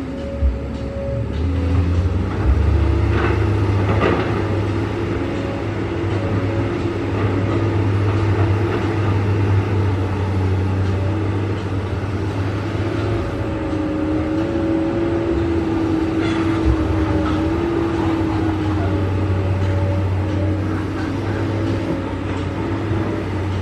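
Excavator's diesel engine running steadily under load, with a hydraulic whine that rises and falls a little. A few short knocks or scrapes come about three to four seconds in and again around sixteen seconds in.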